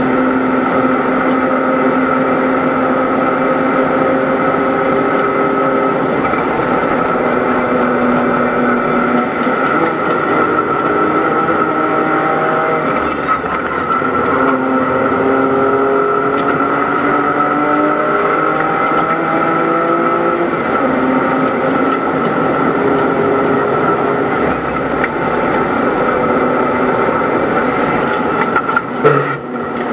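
Inside the cabin of a BMW E90 325i race car, its straight-six engine running hard at high speed, its pitch slowly climbing with a few brief dips, over steady road and wind noise and a high whine. A single loud knock near the end.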